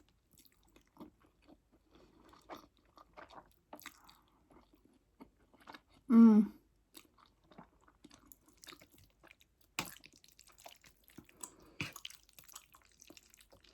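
Close-miked chewing of fettuccine Alfredo, with many soft wet mouth clicks. A short hummed vocal sound about six seconds in is the loudest moment, and a couple of sharper clicks come later.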